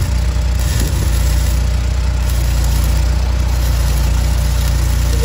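Flux-core wire-feed arc welding on steel: the arc crackling and sizzling steadily, over the low steady hum of an engine running.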